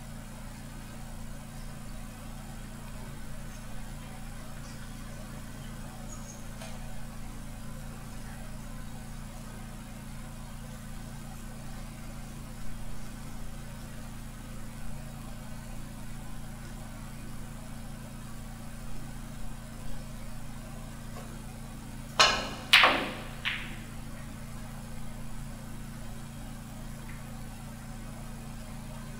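A snooker shot: the cue tip strikes the cue ball, a sharp click comes as it hits a red about half a second later, and a fainter knock follows just under a second after that. A steady low hum runs underneath.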